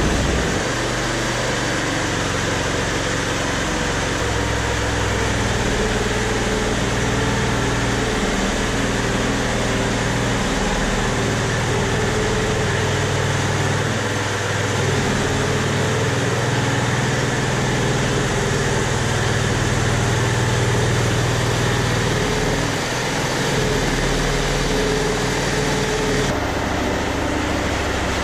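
Engine of a homemade tank running steadily as it moves, its note shifting up and down a few times.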